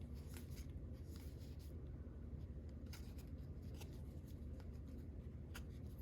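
Baseball cards being flipped through by hand: faint, scattered flicks and slides of card stock against card, over a low steady hum.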